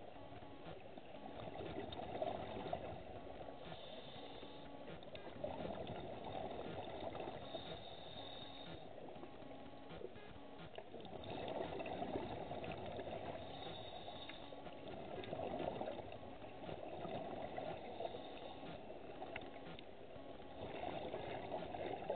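A scuba diver breathing through a regulator underwater: bursts of exhaled bubbles swell and fade every few seconds, with a short hiss of inhalation between them.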